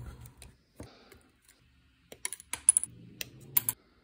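Injection-moulded plastic model-kit sprues clicking and rattling against each other as they are handled, with a quick cluster of sharp light clicks in the second half.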